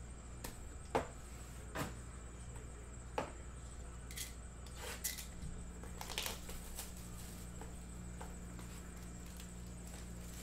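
Trading-card handling on a tabletop: a few sharp clicks and taps of a hard plastic card holder and card boxes in the first few seconds, then brief crinkly rustles of a plastic pack wrapper. A low steady hum runs underneath.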